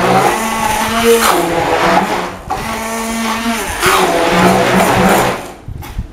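Hand-held immersion blender running in a tall plastic beaker, puréeing ricotta and cooked mushrooms into a thick filling. Its motor pitch rises and falls as the blade works through the mixture, and it switches off near the end.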